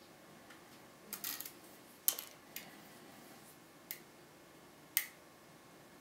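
Sharp metallic clicks of a pick and tension wrench working in a brass Medeco lock cylinder: a quick cluster about a second in, the loudest about two seconds in, and single clicks spaced out after it, the last about five seconds in.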